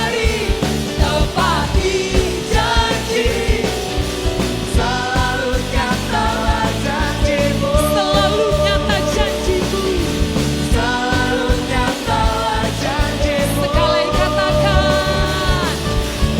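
Live worship band playing a rock-style praise song, with drums and a full band under voices singing the melody.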